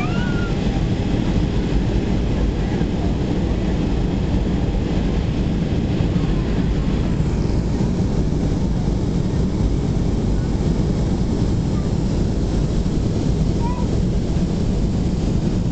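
Steady cabin noise of a Boeing 737-300 on approach, heard from a window seat over the wing: its CFM56-3 engines and the rushing airflow make a deep, even roar. The higher hiss eases a little about halfway through.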